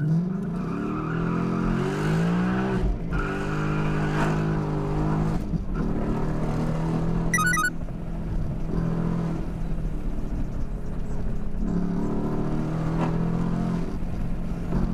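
Car engine heard from inside the cabin, accelerating hard: its pitch climbs and drops back at gear changes over the first few seconds, then it runs at a steadier high pitch. A brief burst of rapid electronic beeps comes about halfway through.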